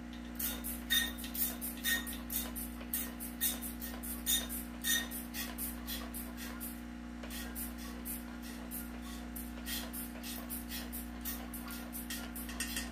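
Hand-held trigger spray bottle squirted over and over, about three or four short hissing sprays a second with a brief lull about halfway, rinsing silver powder out of a beaker into a filter funnel. A steady low hum runs underneath.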